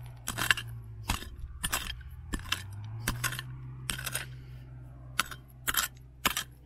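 Metal digging tool striking stony ground and quartz, about nine sharp clinking strikes at an uneven pace of one every half second to a second, as a crystal is dug out of the bank.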